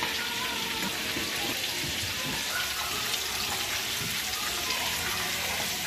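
Chicken pieces frying in a pan of hot oil: a steady sizzle of the bubbling oil.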